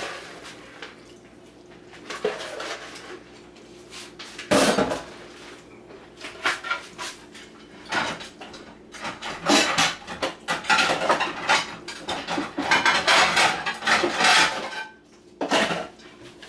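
Cookware and metal utensils clattering: knocking and clinking against a pan, with one loud knock about four and a half seconds in and a denser run of clatter in the second half.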